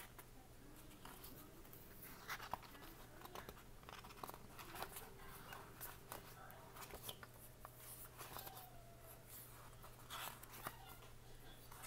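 Faint rustling and ticking of paper sticker-book sheets being flipped through by hand, over a low steady hum.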